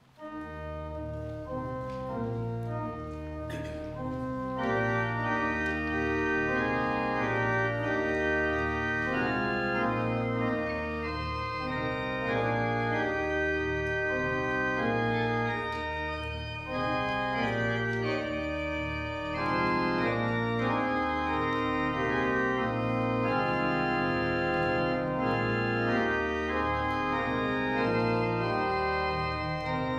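Church organ playing a hymn tune, held chords over bass notes moving in a steady beat. It comes in suddenly and fills out over the first few seconds.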